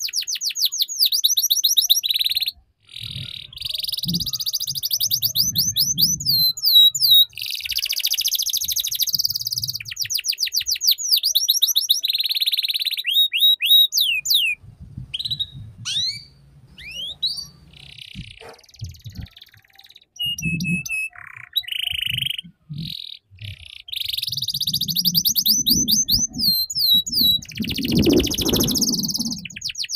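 Domestic canary singing a long, varied song of fast trills: rapid runs of repeated chirping notes broken by short pauses, with some slower, sweeping whistled notes about halfway through. This is the chattering 'ngeriwik' canary song.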